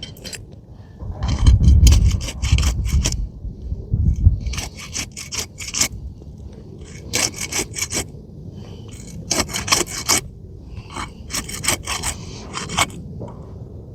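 A flat tool scraping and cutting under asphalt shingles, breaking their tar seal strip in repeated bursts of short, rasping strokes.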